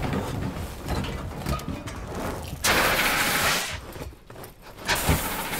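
Film sound effects of a fire in a lab: irregular crackling noise, then a loud rushing hiss about two and a half seconds in that lasts about a second, before it drops away.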